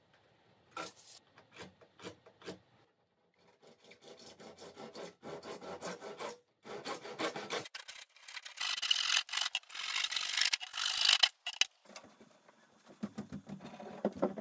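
Handsaw cutting through a hollow white plastic channel in rapid back-and-forth rasping strokes, loudest about two-thirds of the way in. Before the sawing there are a few light taps and scrapes, and near the end there are lower hollow knocks as the plastic is handled.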